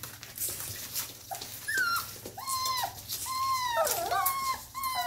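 Norwegian Buhund puppies, four and a half weeks old, whining: about half a dozen short, high whines, some dropping in pitch at the end, starting about a second and a half in and coming closer together toward the end.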